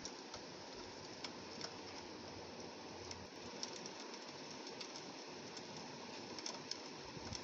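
Steady rain on window glass: an even hiss with frequent light ticks of drops striking the pane.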